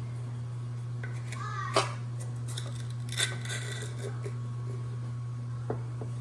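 A few sharp clicks and knocks of a spoon and kitchen containers being handled as sugar is scooped out, the loudest about two seconds in, over a steady low hum.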